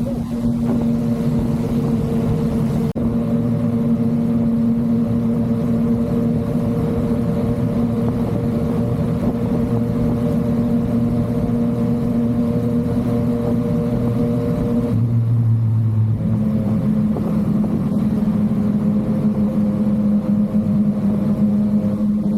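Yamaha MT-09's three-cylinder engine running at steady cruising revs. About fifteen seconds in the engine note breaks briefly, then settles at a slightly lower pitch and holds steady.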